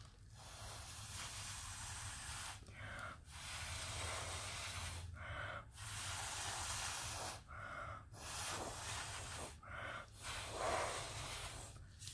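Breath blown through a straw onto wet epoxy resin, five long blows of about two seconds each with quick breaths drawn in between, pushing the poured resin into a free-form edge.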